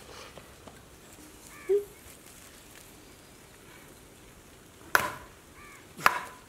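Quiet background with a short, high chirp about a second and a half in, then two sharp chopping knocks about a second apart near the end.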